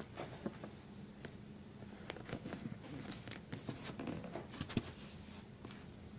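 Scissors and hands working at a taped cardboard shipping box: scattered clicks, scrapes and crackles of packing tape and cardboard as the tape is cut and the box is turned over, with one sharper click a little before the end.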